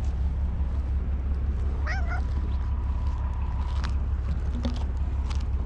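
Steady low rumble of an idling engine. About two seconds in comes one brief call that wavers in pitch.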